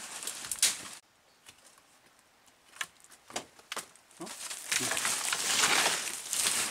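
Leaves and undergrowth rustling and twigs snapping as a person pulls at vines and brush. The rustling cuts off suddenly about a second in; a few sharp snaps follow, then a longer burst of heavy rustling near the end.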